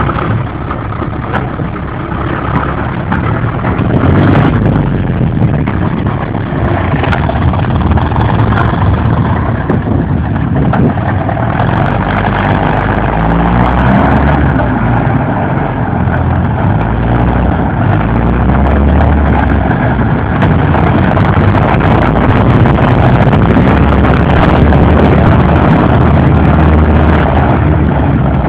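TTM-3902GR tracked all-terrain vehicle's engine running under load as the vehicle is run in after repair, louder from about four seconds in.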